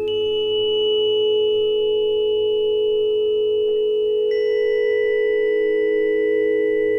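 Several steady electronic sine tones sounding together in a sustained chord, with new higher tones joining right at the start and again about four seconds in.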